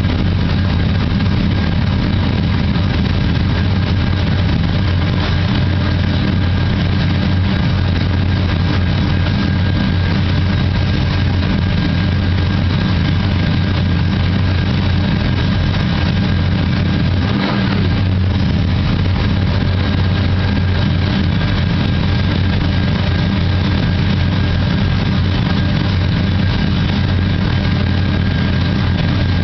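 Recorded V8 idle sound effect playing steadily from a 1/4-scale Visible V8 model engine kit.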